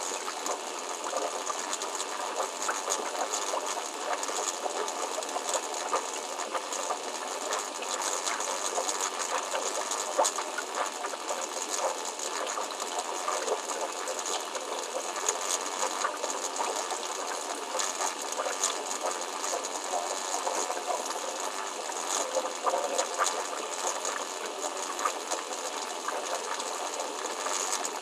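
Steady water noise with fine crackling and ticking, and small splashes from hands working in a bucket of water.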